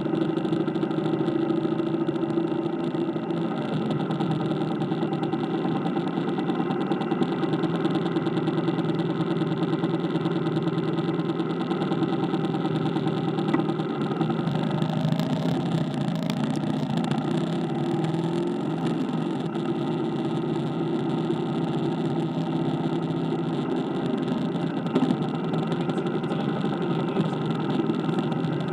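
Motorcycle engine running steadily, heard from on the bike, with a constant hum that barely changes in pitch or level.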